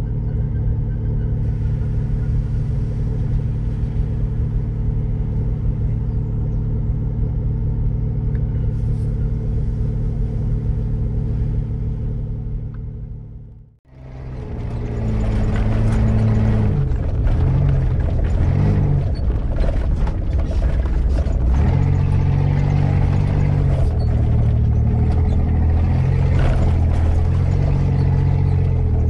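An off-road 4x4's engine heard from inside the cab, idling steadily. After a brief cut about halfway through, the engine runs under load as the vehicle drives a rough dirt track, its pitch stepping up and down, with clattering from the vehicle.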